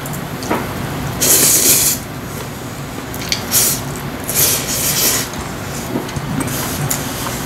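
A person slurping spicy cold mixed noodles off chopsticks: one long, loud slurp about a second in, then shorter slurps between about three and five seconds in. A steady low hum runs underneath.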